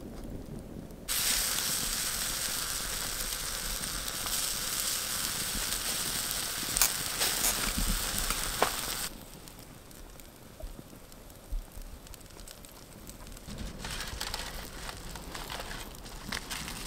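Campfire burning: a steady hiss with sharp crackles and pops, starting abruptly about a second in and cutting off around nine seconds. After that it is quieter, with light crinkling of aluminium foil near the end.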